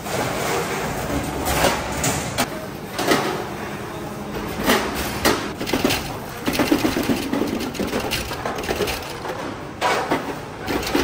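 Workshop sound of sheet-steel motorcycle fuel tank parts being handled and spot-welded: irregular sharp metallic knocks and clinks every second or so over a steady machine noise.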